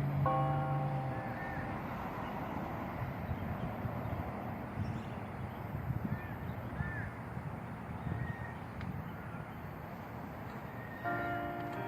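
Church bell tolling: one strike rings and fades within the first second or so, and a new strike rings out near the end. Between strikes, a steady background rumble with a few short bird calls.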